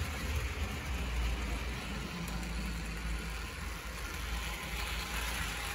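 Hornby Dublo 2-6-4 tank locomotive running slowly on three-rail metal track: a steady low hum from its electric motor along with the rolling of metal wheels on the rails.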